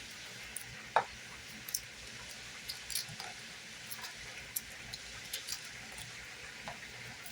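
Scattered light clicks and taps of frozen sliced steak being broken up and handled in a cooking pan, with one sharper knock about a second in, over a faint steady hiss.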